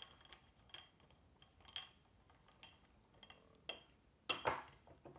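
Telescoping light-stand pole being pulled out, giving a series of small clicks and clinks, with one louder knock a little after four seconds in as the pole is stood on the desk.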